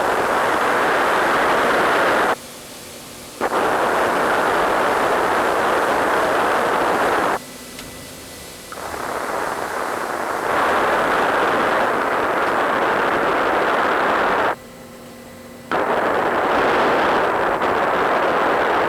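Steady rushing hiss of flow inside a solenoid valve, made audible by a UL101 contact ultrasound detector. Three times it cuts sharply down to a much fainter hiss for about a second before coming back at full level.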